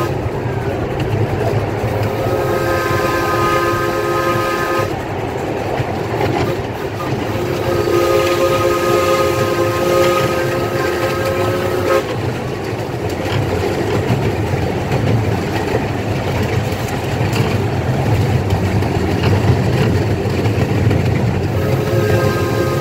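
Steam whistle of a miniature live-steam locomotive sounding a chord of several tones in long blasts: one of about three seconds, a second of about four seconds, and a third starting near the end. Underneath, the steady rumble and clatter of the locomotive and riding car running on the track.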